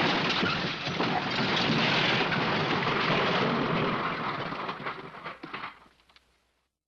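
Crash sound effect: a sudden, loud, dense clatter of falling debris that holds for about four seconds, then thins to a few scattered pieces settling and dies away.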